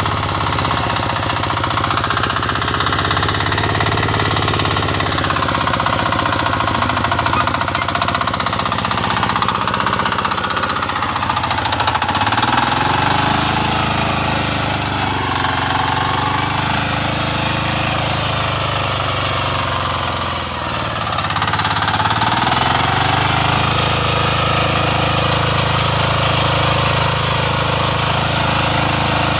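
Shrachi 9 HP single-cylinder diesel power weeder running at working speed while it tills soil. Its engine pitch dips and recovers three times in the middle, then settles back to a steady run.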